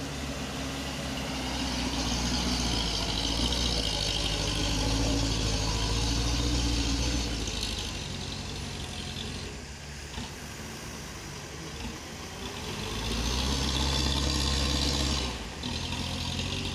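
Diesel engine of a Mitsubishi dump truck loaded with earth, pulling across soft, muddy fill ground. The engine works harder for about five seconds, eases off in the middle, then works hard again near the end before dropping back suddenly.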